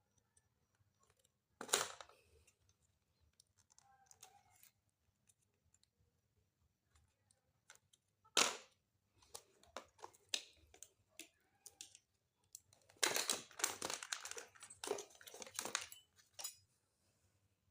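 Scattered handling clicks and knocks, with two sharper knocks about 2 and 8 seconds in, and a busy stretch of rapid clicking and rustling from about 13 to 16 seconds.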